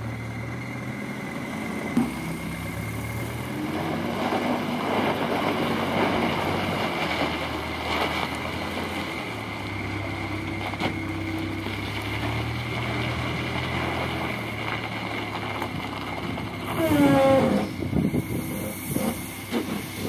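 Terex backhoe loader's diesel engine running as the machine drives with a loaded front bucket, its pitch stepping up and down with the throttle. About three seconds before the end it gets louder with a quick sweep in pitch as the bucket is raised over the truck, followed by a few clanks.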